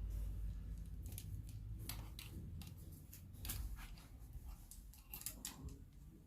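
Irregular small clicks and scrapes from ring-light and tripod parts being handled and fitted together.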